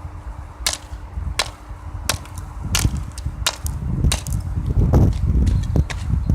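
Repeated sharp strikes of a hard object against a plastic fidget toy, about one every 0.7 seconds, growing denser and heavier in the last couple of seconds as it is smashed.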